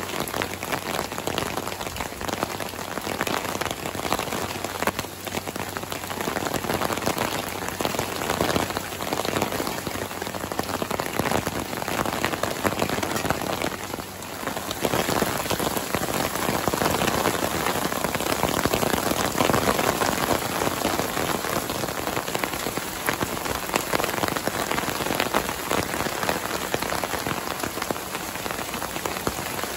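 Heavy thunderstorm rain pouring down, a dense steady patter of drops on foliage and wood, easing briefly about fourteen seconds in.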